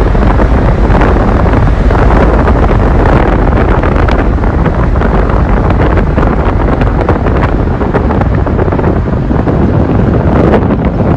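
Strong wind blowing across the microphone: a loud, continuous rumbling buffet that rises and falls in gusts.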